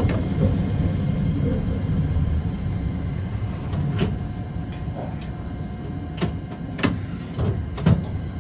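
Hakodate City tram running, a steady low rumble of the car and wheels on the rails that eases a little through the middle. Several sharp clicks and knocks come through, most of them in the last few seconds.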